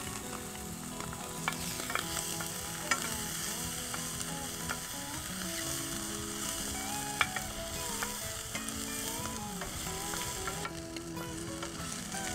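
Diced onions and bacon cubes sizzling in a hot stainless steel frying pan over charcoal, stirred with a wooden spoon that knocks against the pan a few times.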